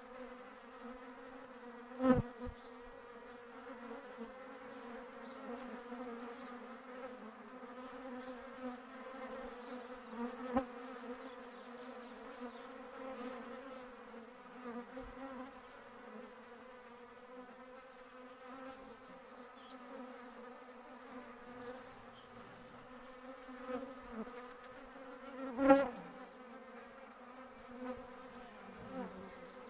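Honeybees buzzing, a steady low hum with overtones. Two sharp knocks cut through it, one about two seconds in and a louder one near the end.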